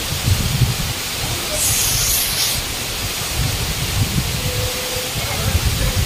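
Steady, loud roar of Katiki waterfall, swollen by heavy rains and falling with great force, with irregular low rumbling under the rush and a brief brighter hiss about two seconds in.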